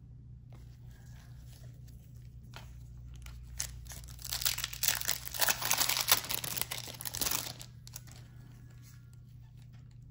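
The foil wrapper of a Topps Chrome trading card pack being torn open and crinkled for about three seconds, starting about four seconds in. Before it come light clicks of cards being handled.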